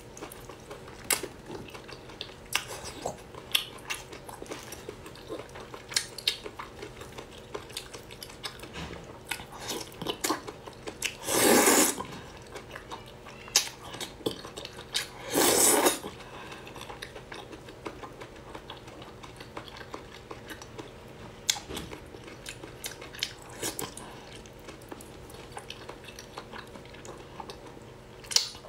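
Close-up eating sounds of a person chewing and sucking in whole octopus tentacles: many short wet clicks and smacks, with two louder half-second bursts about 11 and 15 seconds in.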